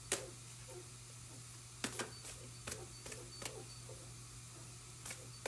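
Tarot cards being shuffled and handled: scattered light clicks and snaps of the cards, some in quick pairs, over a steady low hum.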